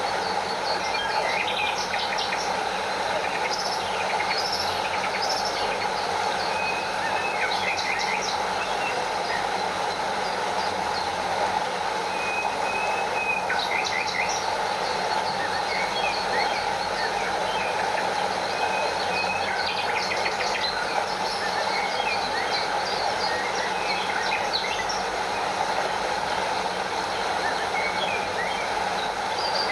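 Steady rush of a stream flowing over a small waterfall, with birds chirping on and off throughout.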